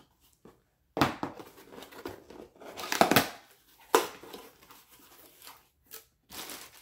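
A cardboard mailing box being opened by hand: packing tape tearing and cardboard and packing rustling in several short bursts with quiet pauses between.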